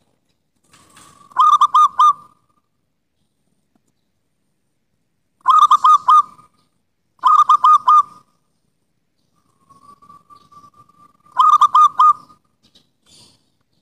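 Zebra dove (perkutut) of the local wild type cooing: four short phrases of quick staccato coos, each about a second long, spaced a few seconds apart. A soft drawn-out note leads into the last phrase.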